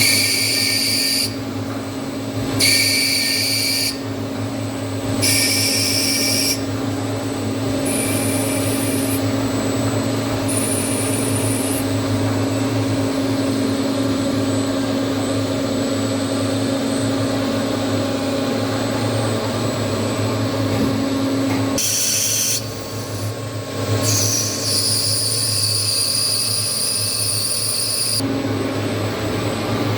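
CNC machine cutting a brass part: a steady motor and spindle hum, with high-pitched cutting whines that come and go every couple of seconds. There is a long stretch of plain running in the middle, and the whines return near the end.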